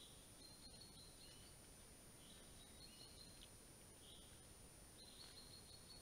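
Near silence in a spring forest: faint distant birds give short high chirps and calls every second or so over a steady hiss, with a thin, steady high-pitched whine underneath.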